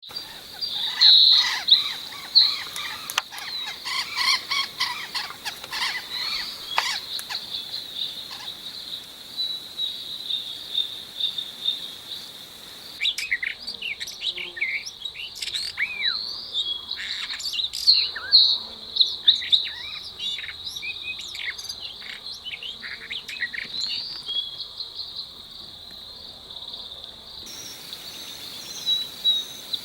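Several wild birds chirping and calling in quick, short notes over a steady, high-pitched insect drone. The background hiss changes abruptly twice.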